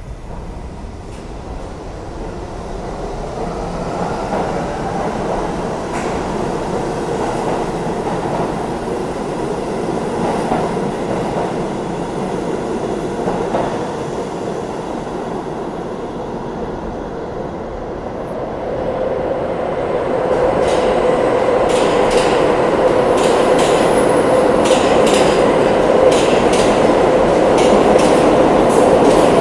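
New York City subway train accelerating out of the station and running away down the tunnel. About twenty seconds in, a second train passes at speed on the far track, louder, with a steady hum and rapid clicks of wheels over rail joints.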